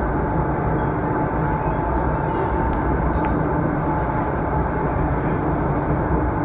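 Steady rush of air and fan noise from an indoor skydiving vertical wind tunnel running at flying speed, with a steady tone running through it.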